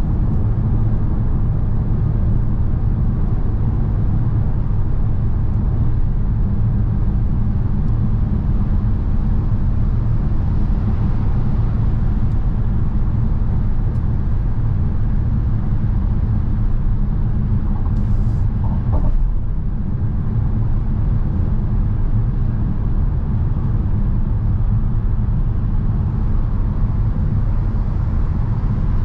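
Mercedes-Benz V-Class V 300 d diesel van on the move: a steady low rumble of engine and road noise that holds even throughout.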